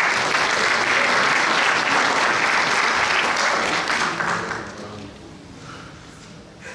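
Audience applauding, a full burst of clapping that fades away about five seconds in.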